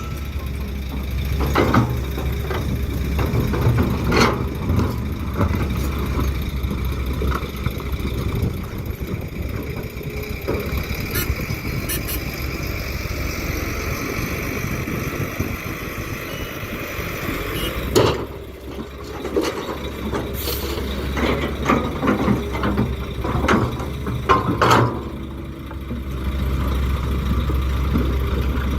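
Heavy diesel machinery, dump truck and excavator engines, running steadily, with scattered knocks and clanks of stone being scooped and dropped. The loudest knock comes about two-thirds of the way through.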